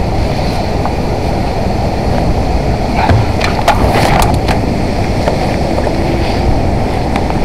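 Steady wind buffeting on the body-worn camera's microphone, a loud low rumble. A few sharp clicks and knocks from the rigging gear come around the middle.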